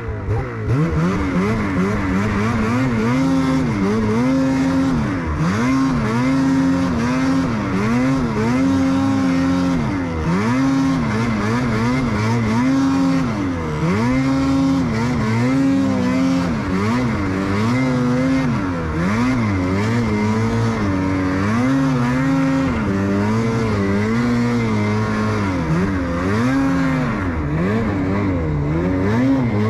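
Ski-Doo snowmobile engine under hard throttle on a steep hill climb, its pitch repeatedly rising and falling every second or so as the throttle is worked on and off.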